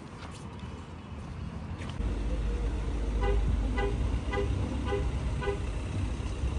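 A low vehicle rumble that grows louder about two seconds in, with five short, evenly spaced beeps sounding about two a second from a vehicle beeper.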